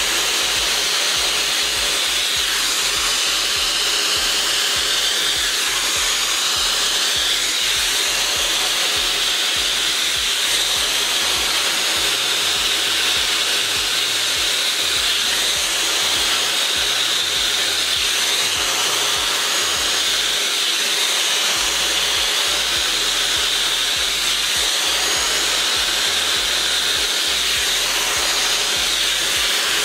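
Dyson Supersonic hair dryer with its wide-tooth comb attachment blowing steadily while it is drawn through hair: an even, airy hiss with no change in speed.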